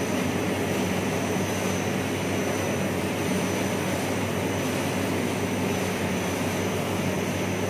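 BOPP film triangle-folding machine running steadily: an even mechanical drone with a low hum and a faint high-pitched whine.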